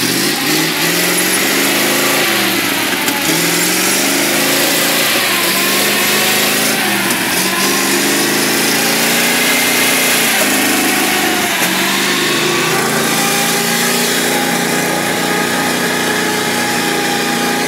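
A ZIL-131 army truck's petrol V8 engine, revved up and down over and over as the truck works through mud, then held at steadier, higher revs for the last few seconds.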